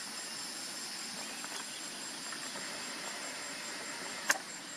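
Steady high-pitched insect chirring, pulsing evenly several times a second over a soft hiss. A single sharp click comes near the end.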